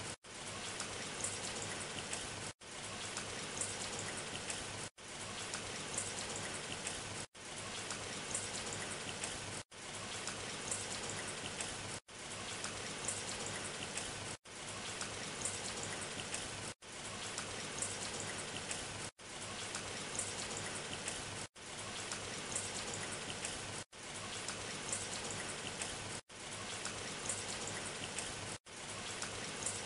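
Steady patter of falling water drops with a fine crackle, cut by brief silent gaps about every two and a half seconds, each followed by a quick fade back in.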